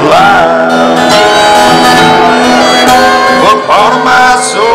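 Fiddle and acoustic guitar playing a tune together, with the fiddle sliding into several of its notes.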